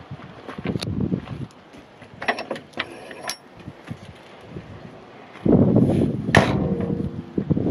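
Sheet-metal service doors on a Cat 316E excavator being handled and shut: metallic clicks and rattles of the hinges and latch, then a heavy bang about six and a half seconds in, with wind on the microphone.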